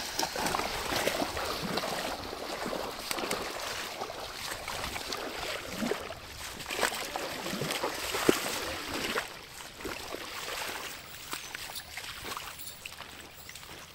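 Bare feet wading through a shallow, stony river, each step splashing, over the steady run of the flowing water. The splashing eases off after about nine seconds.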